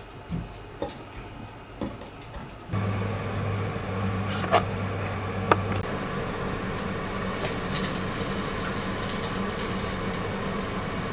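A few light knocks of hands pressing samosa dough on a marble board. After a cut, there is a steady kitchen hum and hiss with two sharp clicks, then a samosa sizzles as it deep-fries in hot oil in a wok, a fine high crackle that starts about two-thirds of the way in.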